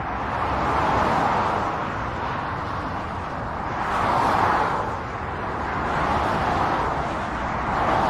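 Motorway traffic: the tyre and road noise of cars passing below rises and fades again, with about four swells over a steady wash of traffic.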